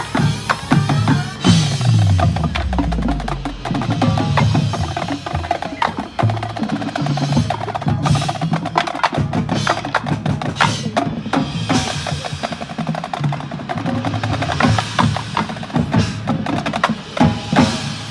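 Marching band music with the percussion section to the fore: a busy rhythm of drums and wood-block-like clicks over mallet percussion and bells. A low tone slides down about two seconds in.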